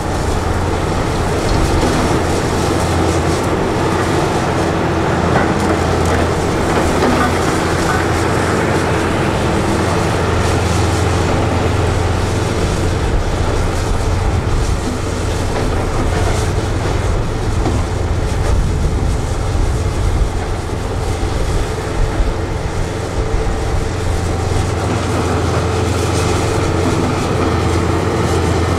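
Hitachi 470 tracked excavator's diesel engine running steadily at working revs during demolition work: a deep drone with a steady whine over it.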